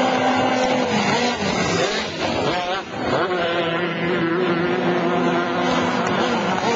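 Formula 250 racing hydroplanes' two-stroke outboard engines running at high revs. Several engine notes at different pitches overlap, sliding in pitch as the boats pass, with a brief dip in loudness about three seconds in.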